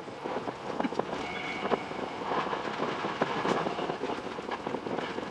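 Running noise of a Tokyo Metro 10000 series electric train, a steady rumble and hiss with irregular sharp clicks from the wheels over the rails.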